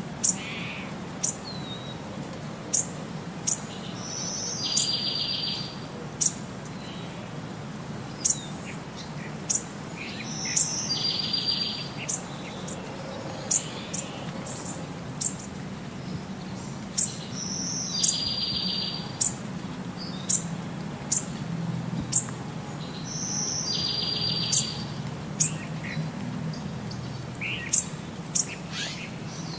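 Birdsong: short, high chirps about once a second, with a buzzy trill every six seconds or so, over a low steady hum.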